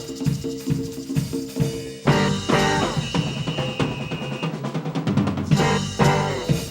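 Live salsa band playing an instrumental stretch, with drum kit and percussion to the fore over bass and other instruments, in a steady rhythm.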